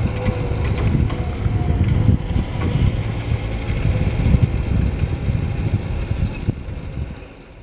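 Bobcat 753 skid steer loader's diesel engine running steadily while it works, with occasional knocks. The sound fades out near the end.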